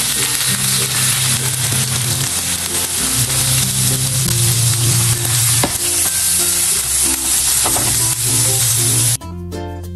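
Tuyo (dried salted fish) sizzling as it fries in hot oil in a nonstick pan. The sizzle cuts off suddenly about nine seconds in. Background music with a steady bass line plays underneath.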